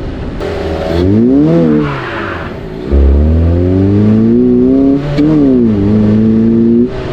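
Volvo engine breathing through an aftermarket cone air intake, accelerating hard. The engine note climbs and drops sharply twice as it shifts up, about one and a half and five seconds in, with a rush of intake noise under load.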